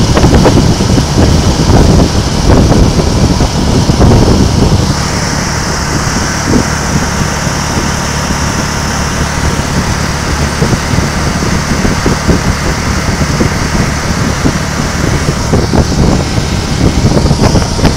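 Can-Am Spyder three-wheeled motorcycle riding at road speed, its engine running under a heavy rumble of wind on the microphone. About five seconds in the sound becomes a little quieter and steadier.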